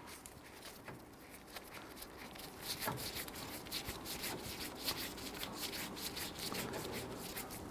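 Faint rubbing with many small clicks as a Phillips screwdriver turns out the screw of a rubber hood bumper.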